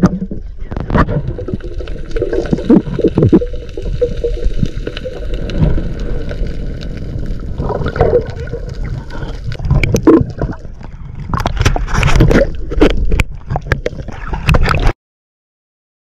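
Underwater sound through a camera in its housing: a loud low rumble of water with gurgling and bubbling, broken by many sharp clicks and knocks. It cuts off suddenly about a second before the end.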